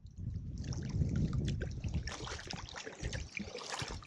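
Small lake waves lapping and splashing against shoreline rocks, with many small irregular splashes over a low rumble.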